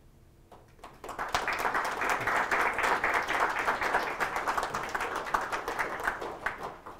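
Audience applauding: a few scattered claps, then full applause from about a second in that thins out near the end.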